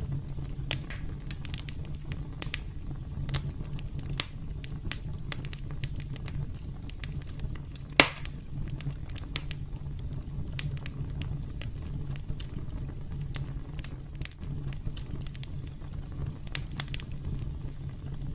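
Wood campfire crackling: a steady low rumble of flames with scattered sharp pops and snaps, one much louder pop about eight seconds in.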